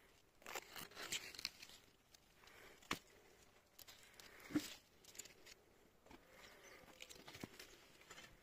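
Faint rustling and crinkling with a few scattered clicks and knocks, the sharpest about three seconds in and just past halfway.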